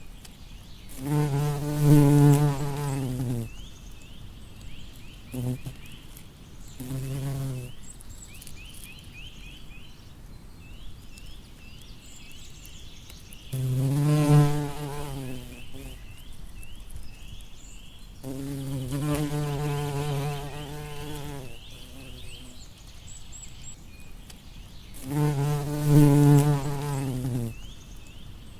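Bumblebee buzzing as it flies near the microphone, in several separate passes of one to four seconds each, the low hum swelling and fading with each pass and two very short buzzes between the longer ones.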